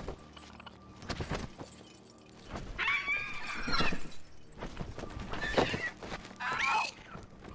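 Dragon shrieking in flight: three screeching, wavering calls, a long one about three seconds in and two shorter ones in the last two seconds.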